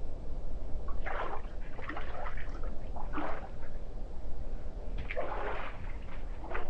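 Water splashing in several short bursts over a steady low rumble.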